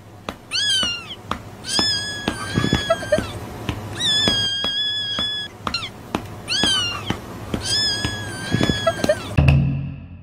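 A cat meowing in a meme sound clip: pairs of short, falling meows alternate with long, drawn-out meows, and the pattern repeats twice. A steady low hum runs underneath.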